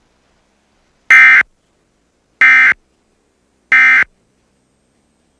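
Three short electronic data bursts about a second apart: the end-of-message code of a broadcast emergency alert (EAS/SAME digital tones), marking the close of the warning.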